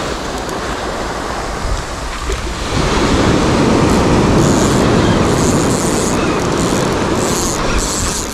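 Spinning reel being cranked while reeling in a hooked jack crevalle, its mechanism giving short high-pitched spells in the second half, over breaking surf and wind on the microphone.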